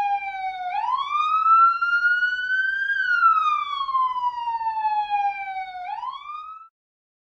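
Police siren wailing: a single tone sliding slowly up and down, each rise or fall taking two to three seconds. It cuts off suddenly near the end.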